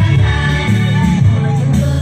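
Loud song with singing over a strong, pulsing bass line, the music the girls are dancing to.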